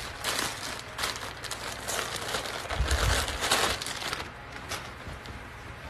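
Thin clear plastic shipping bags crinkling and rustling as they are handled and pulled open, in several quick bursts, with a dull bump about three seconds in.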